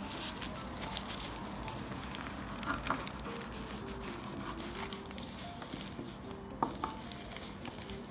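Paper-thin phyllo pastry sheets rustling and crinkling as they are cut and lifted, with a few light clicks of a knife on the wooden board, over faint background music.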